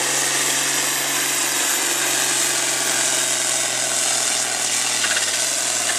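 International Harvester farm tractor's diesel engine running hard under load while pulling a weight-transfer sled, a steady drone. Its pitch drops slightly about five and a half seconds in.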